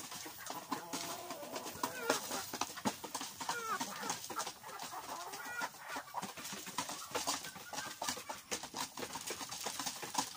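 A flock of chickens clucking and calling as they crowd in at feeding, with many short ticks and taps throughout.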